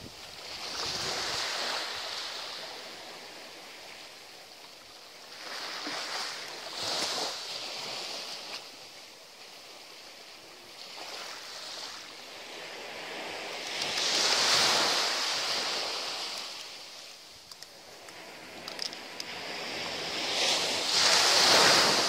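Small sea waves breaking and washing up a sandy beach, a hiss that swells and fades every few seconds, loudest about halfway through and near the end.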